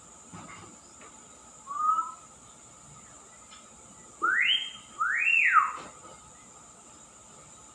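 Caged myna bird whistling: a short chirp, then two loud rising whistles, the second rising and falling back.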